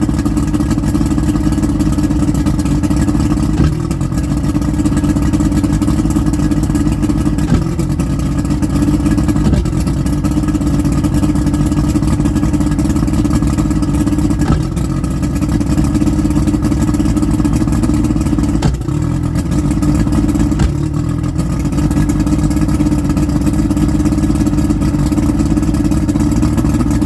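Engine idling rough: it runs steadily with a brief irregular catch every few seconds.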